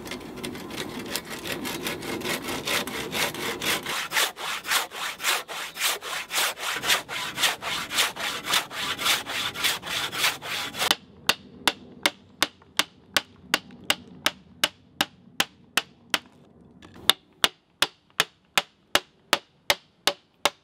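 Hand panel saw cutting across a green oak log, in steady back-and-forth strokes about three a second. About eleven seconds in the sound changes abruptly to a run of sharp, evenly spaced ticks at a similar pace, with a short pause near the end.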